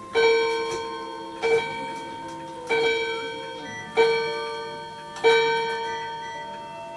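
A bell-like chime struck five times on the same note, about once every second and a quarter, each stroke ringing out and fading.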